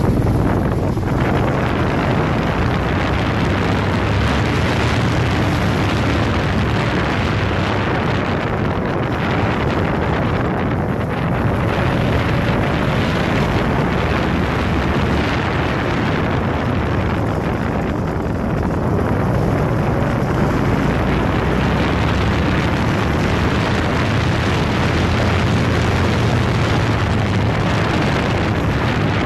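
Small go-kart engine running as the kart drives along the street, with heavy wind buffeting the microphone.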